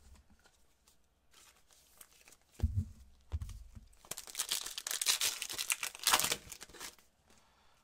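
A Donruss Optic basketball card pack's wrapper being torn open and crinkled in the hands: a couple of low thumps of handling, then a dense crackling tear from about four seconds in until near the end.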